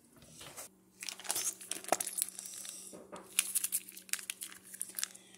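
Foil cheese-sauce pouch crinkling and crackling as it is handled and squeezed out over cooked pasta, in irregular crackles starting about a second in.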